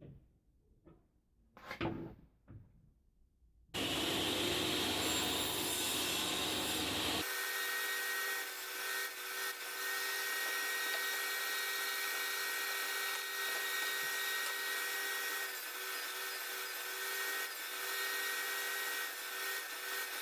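A few light knocks, then a woodworking power tool starts suddenly about four seconds in and runs steadily. A few seconds later its sound settles into a steady whine with several fixed pitches.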